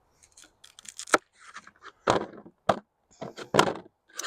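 Kitchen knife cutting through a raw sweet potato: several sharp cracks and knocks as the blade splits the firm flesh.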